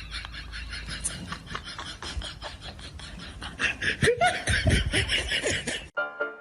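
Laughter in quick short pulses, loudest about four seconds in, cut off abruptly by piano music near the end.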